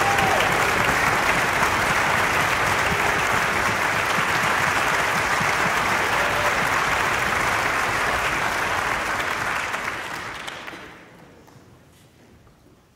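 Audience applauding steadily, then dying away about ten seconds in.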